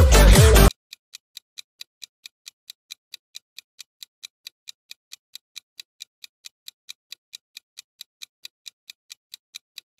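Music cuts off abruptly under a second in, giving way to a quiz countdown timer's clock-ticking sound effect: quick, even ticks, about four to five a second.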